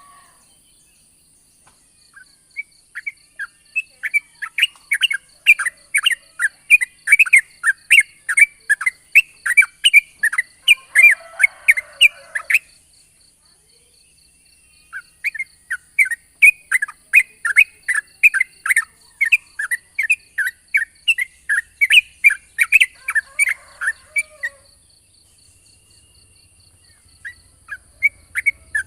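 Yellow-vented bulbul (trucukan) singing long runs of rapid, evenly repeated chirping notes, about three a second. There are two phrases of roughly ten seconds each, separated by a short pause, and another starts near the end. A faint steady high hiss runs underneath.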